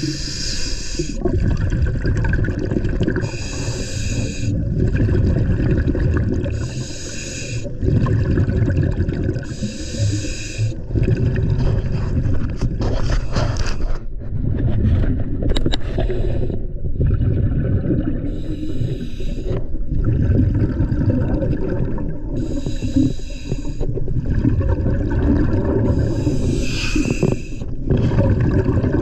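Scuba diver breathing through a regulator underwater: regular bubbling exhalations about every three to four seconds over a steady low rumble, with a pause and a few clicks near the middle.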